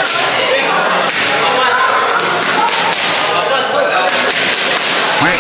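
Boxing gloves smacking against focus mitts: several sharp slaps spread through a padwork combination, with voices in the background.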